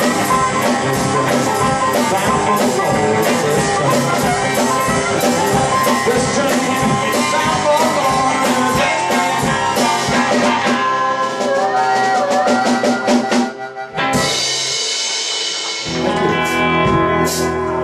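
Live blues trio of electric guitar, harmonica and drum kit playing a steady train-rhythm shuffle. The beat stops about 13 seconds in and held notes follow.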